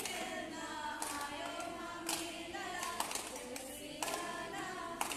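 A group of girls singing together without instruments, clapping their hands in time, roughly once a second.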